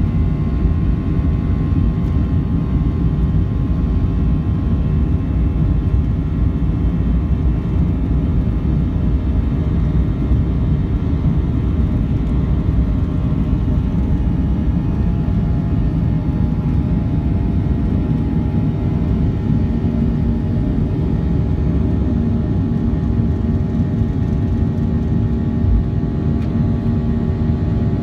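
Boeing 737-800's CFM56-7B turbofans at takeoff thrust, heard from the cabin beside the wing: a loud, steady rumble with the buzzsaw drone of the fans' many steady tones, as the jet runs down the runway and lifts off. A low steady tone grows stronger about two-thirds of the way in.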